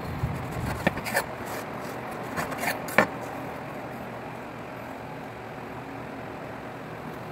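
Crisp charred crust of a wood-fired flatbread crackling as it is pressed and pulled apart by hand, with a handful of sharp crackles in the first three seconds. A steady low hum runs underneath.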